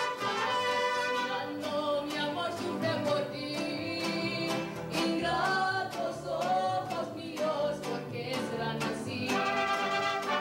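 A woman singing a song with a mariachi band accompanying her on strummed guitars, with some held notes sung with vibrato.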